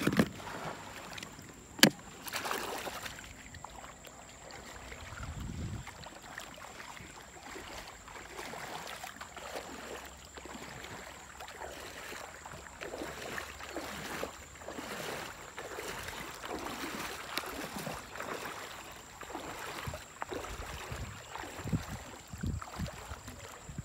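Water sloshing and splashing as a person wades through a river and handles a cast net, with one sharp click about two seconds in.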